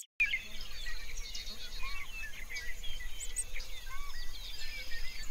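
Many small birds chirping and twittering at once, a dense overlapping chorus of short high calls, with a lower hooked call repeating about every two seconds.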